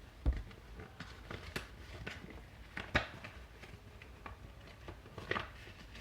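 Thick paper being folded and creased by hand: soft rustling and crinkling with scattered small taps, a few sharper ones near the start, in the middle and near the end.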